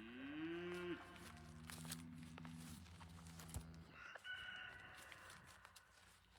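Faint farm animal calls. A low, drawn-out call rises in pitch and then holds over the first three seconds. A higher call follows about four seconds in.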